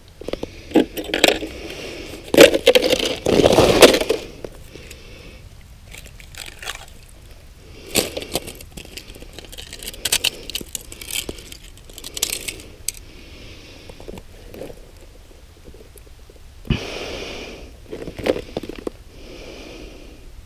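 Crunching and scraping of broken ice and snow around an ice-fishing hole, with knocks from handling a plastic tip-up. The noises come in irregular spells, heaviest about two to four seconds in, then in shorter scattered scrapes.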